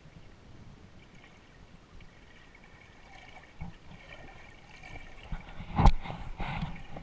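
Water gurgling and trickling, picked up by a camera held underwater while snorkeling. A single sharp knock comes about six seconds in, then a brief burst of louder water noise as the camera swings toward the surface.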